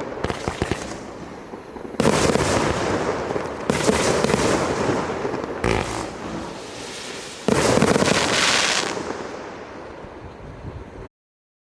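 A 100-shot, 1.2-inch firework cake firing in rapid volleys of shots and bursts. The volleys come in loud surges about every two seconds, each tailing off, then the firing dies down and stops abruptly near the end.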